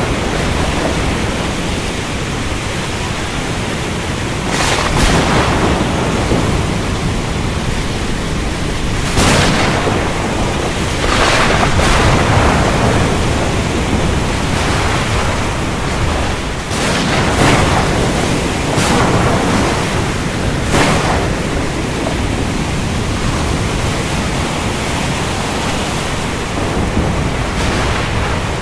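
Thunderstorm: a steady wash of heavy rain with sudden thunder cracks every few seconds, clustered around a third of the way in and again past the middle.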